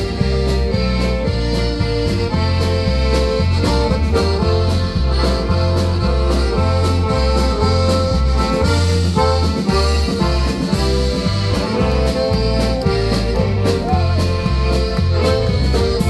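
Live polka band playing an instrumental passage with the accordion leading, over a bass line stepping back and forth between notes and a steady drum beat.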